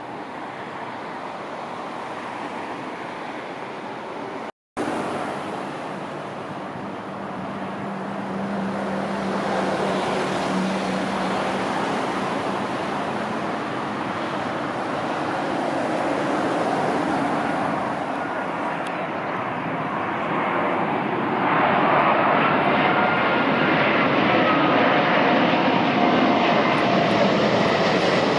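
Heavy jet airliner on approach to land, its engine noise building up and loudest in the last third, where a high engine whine slides down in pitch. The sound drops out abruptly for a split second about four and a half seconds in.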